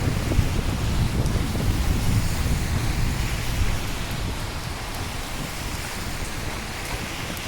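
Steady rain with a low roll of thunder that dies away over the first few seconds.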